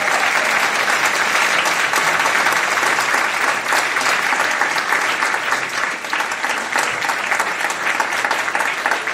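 An audience of many people applauding, with steady, sustained clapping throughout.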